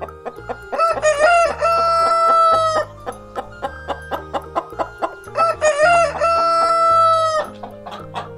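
A rooster crowing twice. Each crow has a broken, stuttering start and then a long held note.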